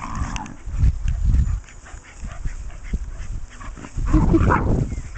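Patterdale terriers playing and chasing, with dog vocal sounds and a louder outburst about four seconds in, over a low, uneven rumbling on the microphone.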